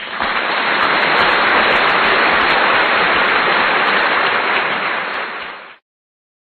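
A loud, steady hiss of dense noise with faint sharp clicks over it, cutting off suddenly near the end.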